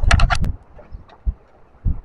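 A quick run of about five sharp clicks, then two dull low thumps, over a faint low rumble.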